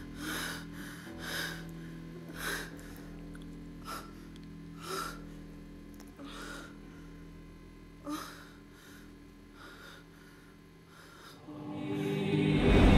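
Quick, irregular gasping breaths, roughly one a second, over a low steady drone; near the end film music swells up loudly.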